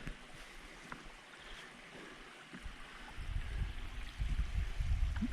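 Small waterfall in a garden pool running with a steady splash and trickle. An uneven low rumble joins about three seconds in.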